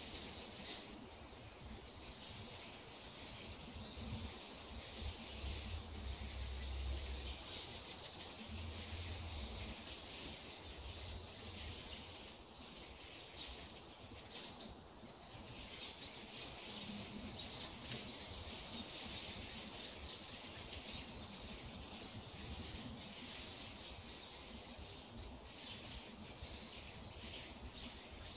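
Small birds chirping and twittering continuously in the woods, many short high calls overlapping. A low rumble joins for a few seconds about five seconds in.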